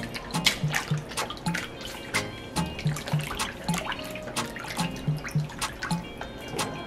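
Water splashing and dripping as salmon fillets are rinsed under a kitchen tap, with many short sharp splashes, over background music.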